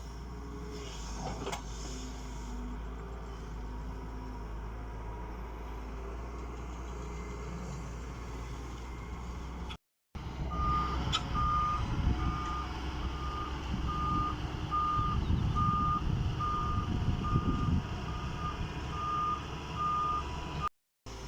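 Doosan DX140W wheeled excavator's diesel engine running steadily. About halfway through, after a cut, the machine's travel/reversing alarm beeps at an even pace, about one and a half beeps a second. Under the beeps the engine is louder and swells in bursts.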